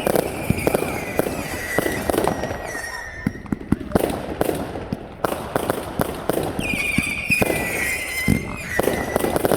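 Fireworks going off: many sharp bangs and cracks in quick succession. Over them come two long, high whistles, each falling slightly in pitch, the first over the first few seconds and the second from about two-thirds of the way in.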